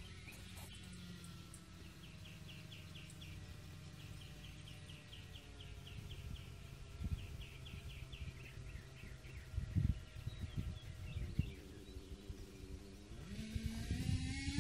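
Two-stroke nitro engine of a Kyosho KE25-powered RC truggy running in the distance on a rich break-in tune, faint and steady, while a bird chirps in quick runs and a few low thumps sound. Near the end the engine grows louder and rises in pitch as the truggy comes back.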